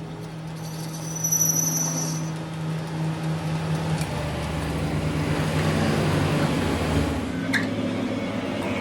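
A machine or motor running with a steady hum that grows louder over the first second or so, with a couple of short clicks.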